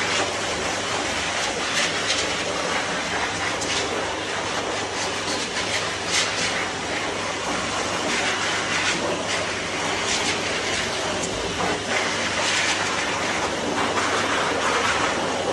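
Hose-type pet grooming blower dryer running steadily, its air blast rushing through a small dog's damp coat to dry it; the hiss swells and eases as the nozzle is moved over the fur.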